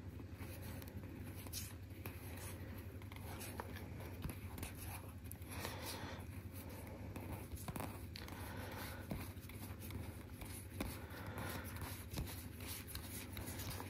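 Yu-Gi-Oh! trading cards being flipped through by hand: faint, irregular sliding and light clicks of card against card.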